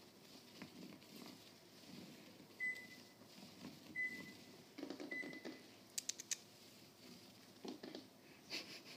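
An electronic beeper sounds three short, high beeps about a second apart, then a quick cluster of sharp clicks. Soft scuffling of kittens' paws playing on a tiled floor runs underneath.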